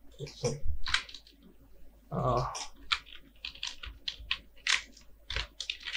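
Computer keyboard typing: a run of short, irregular key clicks.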